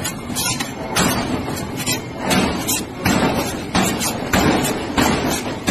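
Heavy forging machinery working a red-hot steel train-wheel blank: a steady clattering din broken by repeated metallic knocks and thuds, roughly one every half second to a second.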